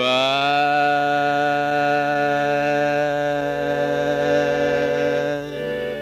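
A man singing one long wordless note in a country ballad, sliding up into it and holding it with a slight waver until near the end, over sustained backing music.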